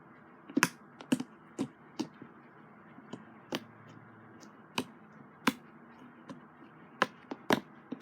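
Slime being squeezed and stretched by hand, giving irregular sharp clicking pops, about a dozen in eight seconds.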